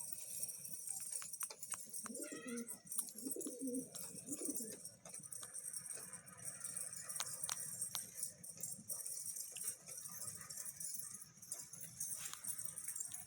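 Domestic pigeons cooing: a run of low, wavering coos about two to five seconds in, with scattered sharp clicks around them.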